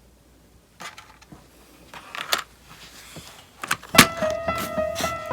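Scattered clicks and knocks of hard plastic toys being handled. About four seconds in, a loud knock, and then a melody of clear sustained notes starts.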